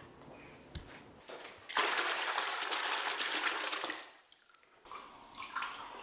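Water pouring and splashing into a basin, loud for about two seconds and then dying away.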